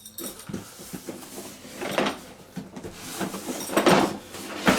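Cardboard toy box and the plastic-wrapped pieces inside being handled, rustling and knocking, with louder crackling clatters about two seconds in and twice near the end.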